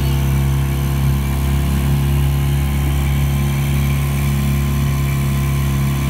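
Small outboard motor running steadily at an unchanging pitch, driving the boat at speed.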